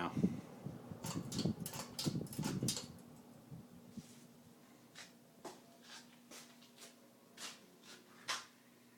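Hunter Infiniti ceiling fan switched off and coasting down: irregular knocks and rustles for the first three seconds, then a faint steady hum with light ticks about every half second.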